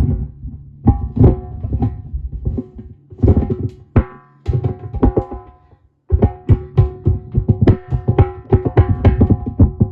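Background music of rapid, pitched hand-drum strokes in a busy rhythm, breaking off for a moment about six seconds in and then starting again.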